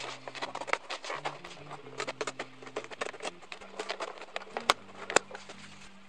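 Scissors cutting through leather: an irregular run of sharp snips and crackles, a few a second, with two louder snaps near the end, over faint background music.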